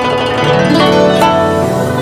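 Background music: a plucked-string melody, a new note every fraction of a second.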